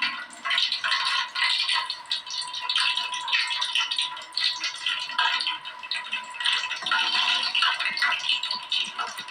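Cooking oil heating in a pan, crackling and sizzling with a dense, irregular patter of small pops.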